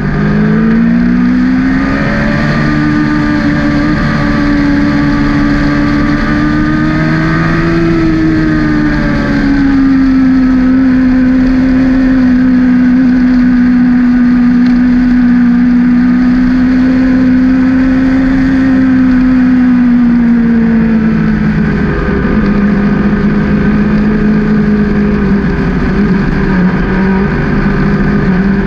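Sport motorcycle engine heard on board at speed, with wind rushing over the microphone. The engine note climbs over the first couple of seconds, rises a little again about eight seconds in, holds steady, then drops about twenty seconds in as the bike eases off.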